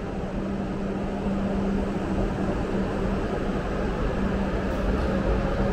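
Steady running noise of a Shinkansen train: an even rushing hiss over a constant low hum.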